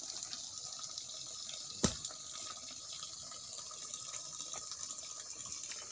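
Steady running or trickling water, with one sharp knock about two seconds in.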